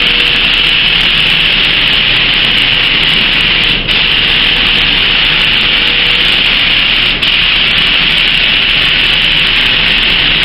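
Gravity-feed paint spray gun spraying a first coat: a loud, steady hiss of compressed air and atomised paint from the nozzle, cut briefly twice between overlapping passes.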